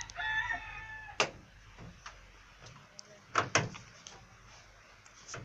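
A thin, high steady tone for about a second, then sharp knocks: one about a second in and two close together past the middle, with fainter clicks between.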